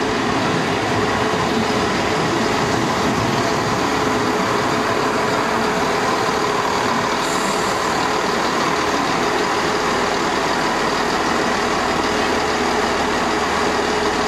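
A Networker Turbo diesel multiple unit running slowly along a station platform: a steady diesel engine drone mixed with wheel and rail noise.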